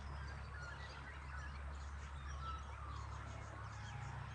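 Wild birds calling in the background, with many short, scattered high chirps and whistles, over a steady low rumble.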